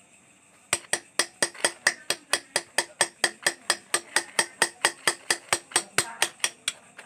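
A hand chisel being tapped with a small hammer in quick, even strokes, about four to five a second, as it cuts engraving lines into a polished motorcycle engine block: sharp metallic taps with a bright ring. The tapping starts about a second in.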